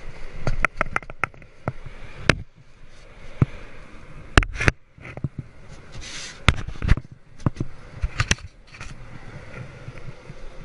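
Irregular knocks, clicks and scrapes of a plastic kayak being handled on wet sand, over a steady background hiss.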